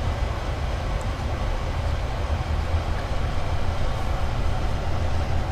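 Mr. Heater F299201 blower fan running on a propane wall heater, a steady low rumble of moving air, the fan having kicked in once the heater warmed up.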